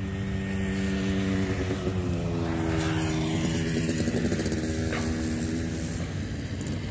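A vehicle engine running steadily, its pitch wavering and shifting in the middle.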